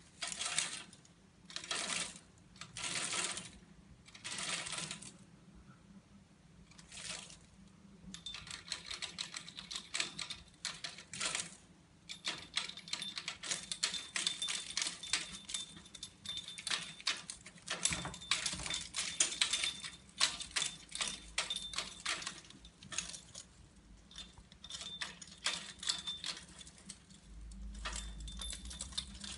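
Caique parrot chewing and clattering at its toys: a few short rustling bursts, then from about eight seconds in a dense, rapid, irregular clicking and clattering.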